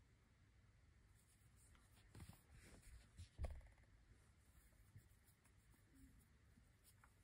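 Very faint scratchy rustling of cotton thread being drawn through stitches with a steel crochet hook, with a soft low knock about three and a half seconds in.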